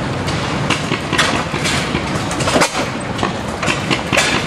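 Antique Economy stationary gas engine running, its crankshaft and connecting rods turning, with a steady mechanical clatter of irregular clicks and knocks.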